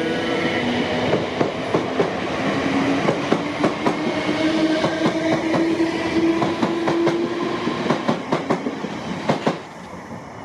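South Western Railway Class 455 electric multiple unit running through the station, its wheels clicking over the rail joints, with a steady hum through the middle of the pass. The noise drops away sharply about nine and a half seconds in as the last car clears.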